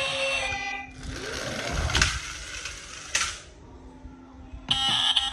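Toy car rolling across a tabletop: a whir that falls in pitch and two sharp clicks about a second apart. Music plays briefly at the start and starts again near the end.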